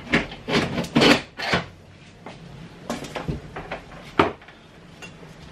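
Electric pressure cooker being handled and set on a kitchen counter: a quick run of knocks and clicks in the first second and a half, then a few scattered clicks.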